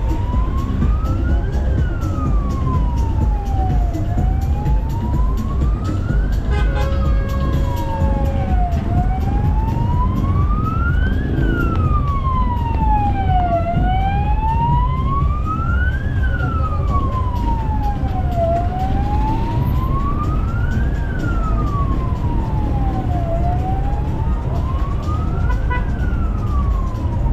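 Wailing siren sliding slowly up and down, about one rise and fall every five seconds, with a second, fainter siren overlapping for a few seconds in the middle. A brief steady tone sounds about seven seconds in. Underneath runs a steady low rumble of slow-moving car traffic.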